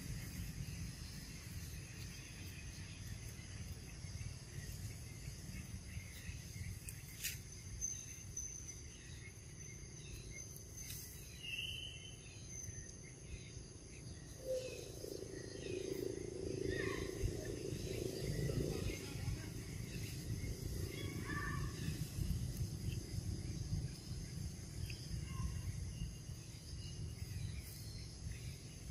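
Outdoor ambience: a steady high insect drone over a low rumble, with scattered short chirps. A louder murmur rises between about 15 and 20 seconds in.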